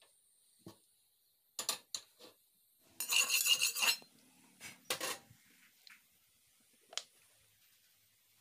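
Metal kitchenware clattering on a gas stove: scattered clinks and knocks of an aluminium kadai and a metal utensil, with a loud scrape or rattle lasting about a second, three seconds in.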